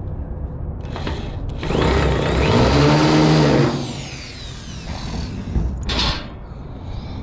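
Power drill with a small bit boring through a truck's frame. The motor winds up and back down in a loud burst of about two seconds in the middle, then gives a shorter whir near the end.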